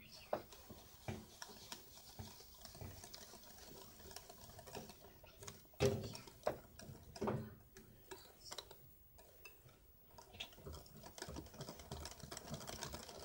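Hand wire whisk beating semolina cake batter in a glass bowl: quick, irregular clicks of the metal wires against the glass, with a couple of louder knocks midway.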